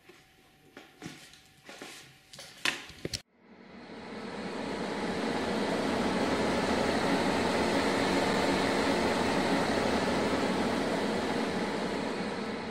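A pen scratching on paper in a few short strokes as a signature is written. It cuts off abruptly and a steady rushing noise swells in over about two seconds and then holds, a sound effect laid under the title card.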